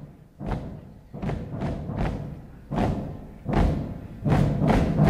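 Background music of struck, ringing percussive notes, about two a second.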